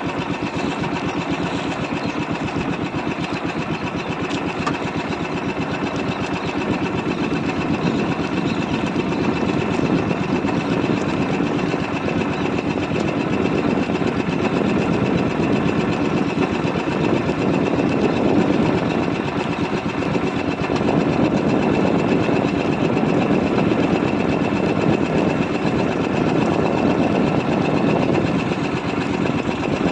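Small fishing boat's engine running steadily with a fast, even putter, getting slightly louder a few times.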